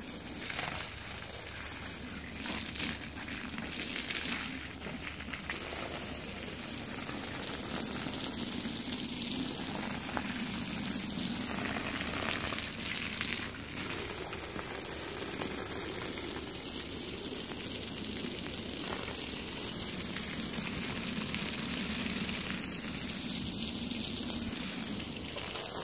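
Water jet spraying over a soap-covered rug, rinsing the foam off: a steady hiss of spray and splashing water.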